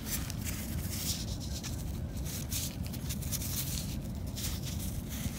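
Wind rumbling on the microphone, steady and low, with scattered light rustles.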